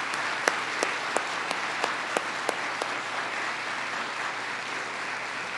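Audience applauding. One clapper close by stands out about three times a second for the first few seconds, and then the applause slowly tapers off.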